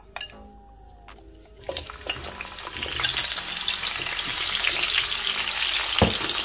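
Sliced sausage rounds going into hot oil in a frying pan: a sizzle starts about two seconds in and builds to a steady frying sizzle as a wooden spatula stirs them, with one sharp knock against the pan near the end.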